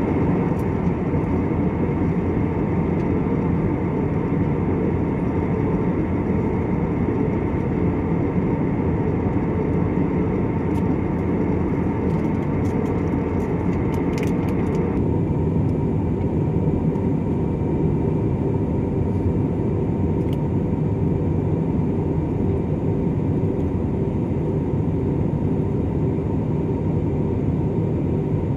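Jet airliner engines giving a steady low rumble. A higher hiss over the rumble cuts off abruptly about halfway through.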